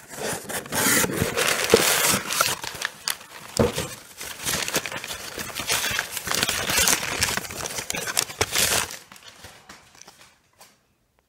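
Paper and cardboard packaging being handled close to the microphone: a rapid, irregular run of rustling and scraping that stops about nine seconds in.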